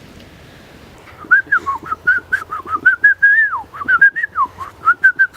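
Whistling: a quick run of short, chirping, bird-like notes that swoop up and down, starting about a second in.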